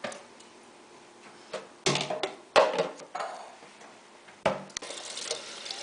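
A series of knocks and clatters as tomato cans and kitchen containers are handled on the counter, the loudest about two and a half seconds in. Near the end a kitchen tap starts running with a steady rush.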